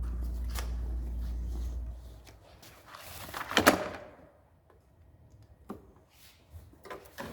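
A steady low hum that stops about two seconds in, then a short clatter of sharp metal clicks as sockets and a socket organizer are handled, followed by a few lighter clicks near the end.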